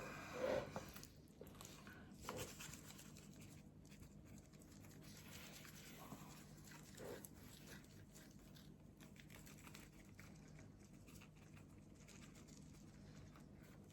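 Faint, scattered pattering of dry barbecue rub being sprinkled onto raw pork baby back ribs.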